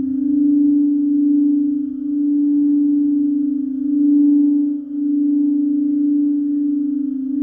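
Singing bowl held in a continuous sung tone, one steady low note with faint higher overtones. Its loudness swells and dips in slow waves.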